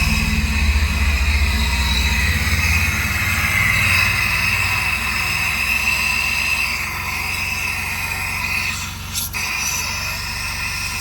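Turbocharged 4.3-litre V6 of a Chevrolet S10 pickup idling just after starting, with a steady high-pitched whine over the rumble; the idle settles lower about six seconds in. This is the test run for belt squeal after a new smaller serpentine belt and power steering pump were fitted.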